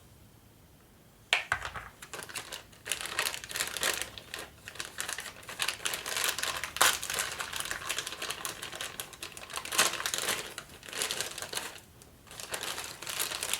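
Plastic packaging crinkling and rustling as it is handled, in dense irregular bursts of small crackles that start about a second in, with a short lull near the end.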